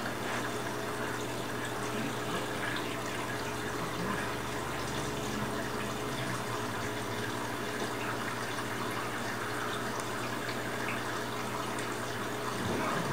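Water running and trickling through a saltwater aquarium's circulation, heard as a steady wash of moving water over a constant low hum.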